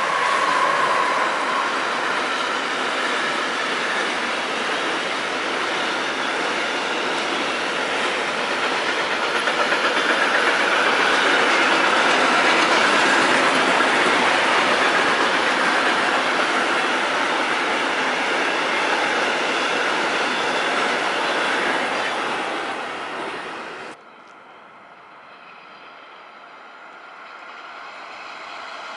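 A long intermodal freight train's wagons rolling past close by: a steady, loud noise of steel wheels on the rails. Near the end the noise cuts off suddenly, leaving the quieter sound of a distant electric-hauled freight train approaching and growing louder.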